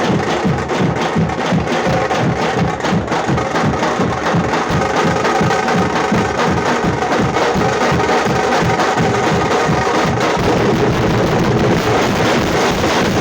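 Tamate, the Karnataka folk frame drum beaten with sticks, played in a fast, driving beat; the strokes run together more from about ten seconds in.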